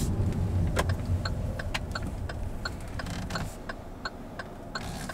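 Car turn signal ticking steadily, about two to three clicks a second, over the low rumble of the engine and road inside the car's cabin.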